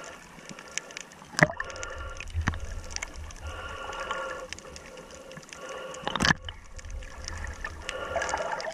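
Muffled underwater sloshing and low rumble of water moving around a submerged camera during snorkeling. Two sharp knocks, about a second and a half in and again about six seconds in.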